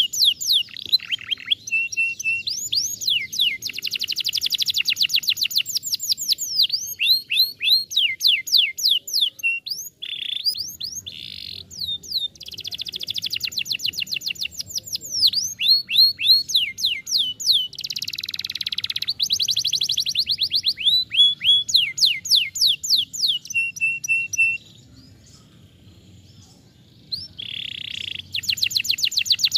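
Domestic canary singing a fast, varied song of rapid trills, each made of quickly repeated notes, many sweeping down in pitch. The song drops away for about two seconds near the end, then the trilling starts again.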